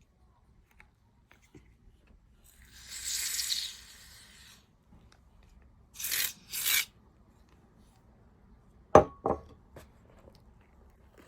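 Scratchy, hissing handling noises from working with soap foam and slime: one longer hiss of about two seconds, then two short strokes, then two sharp clicks close together.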